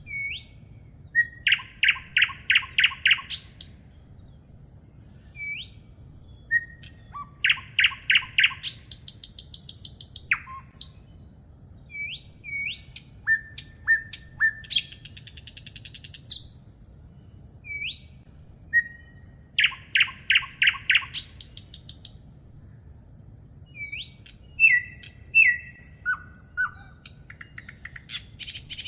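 Songbirds singing. A phrase of rapid, loud notes followed by a higher, thinner trill repeats about every six seconds, with short rising call notes in between.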